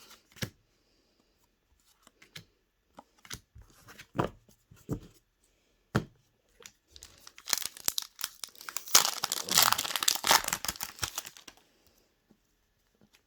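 A few light taps and clicks of cards being handled, then a few seconds of loud crinkling and tearing as a foil Pokémon booster pack wrapper is ripped open, ending suddenly.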